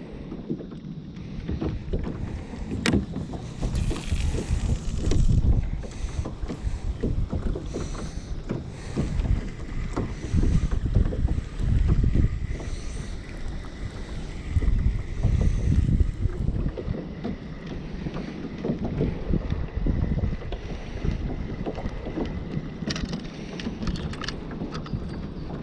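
Kayak moving through the water while trolling a lure: water sloshing and splashing against the hull in uneven surges, with wind buffeting the microphone.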